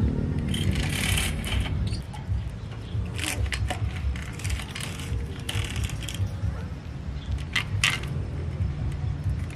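Light metallic clinks and rattles of bicycle parts and tools being handled, with a handful of sharp clinks, the loudest two close together near the end.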